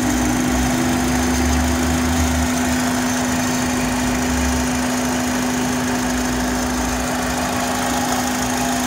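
Honda Accord four-cylinder engine idling with a steady whistling hum, one constant note that comes from the throttle body and intake manifold area. The note persists despite a new IAC valve and PCV valve and a cleaned throttle body; the owner suspects the intake manifold but is not sure.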